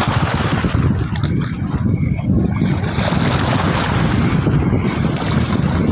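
Wind buffeting the microphone: a loud, unsteady rumble with hiss above it.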